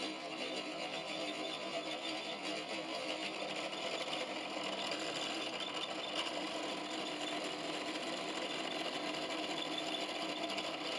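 Bench drill press motor running steadily while its bit drills a hole through a small carabiner.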